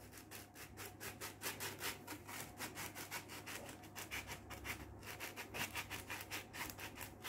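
Powdered-sugar sifter being shaken over pastries, dusting on icing sugar: a faint, rhythmic, scratchy rubbing of about five strokes a second.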